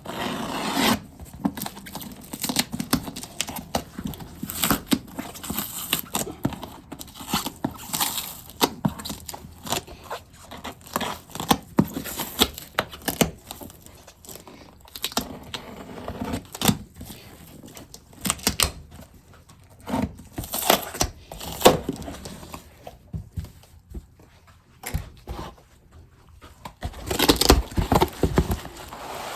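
Packing tape being ripped and peeled off a shipping package, with crinkling packaging in between: an irregular run of short rips, crackles and scrapes, densest near the end.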